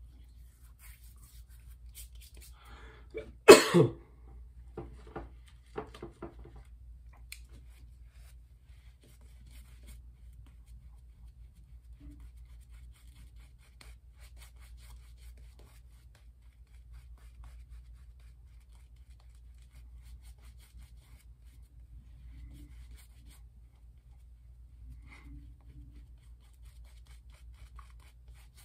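A man sneezes once, loudly, about three and a half seconds in, with a few softer bursts of breath just after. For the rest of the time a horsehair shaving brush rubs lather over his face with a faint, soft brushing.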